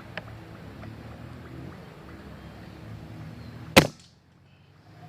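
A single shot from a 5.5 mm (.22) break-barrel air rifle: one sharp crack about four seconds in, over quiet outdoor background.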